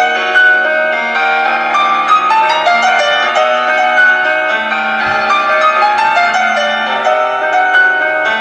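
Classical piano music: a flowing, continuous run of notes over sustained lower tones.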